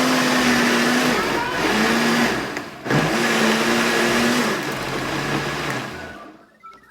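Countertop blender motor running loud, mixing cornmeal cake batter with grated cheese. Its pitch sags and picks up again twice in the first three seconds, then it winds down and stops near the end.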